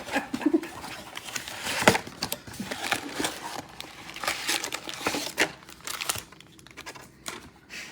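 Trading-card pack wrappers crinkling and cards being handled: irregular crackles and light taps.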